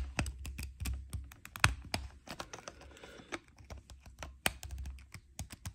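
Irregular small plastic clicks and scrapes as the bottom cap of an Oral-B iO electric toothbrush handle is pressed into the ridges of its charger base and twisted. The cap is stuck and not turning.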